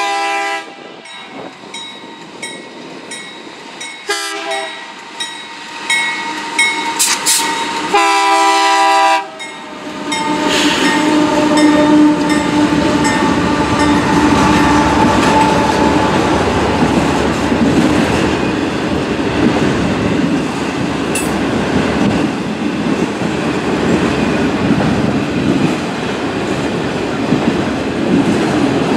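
Train horn sounding for a grade crossing in several blasts, the last and longest ending about nine seconds in, then the train passing close by with its wheels clattering over the rails.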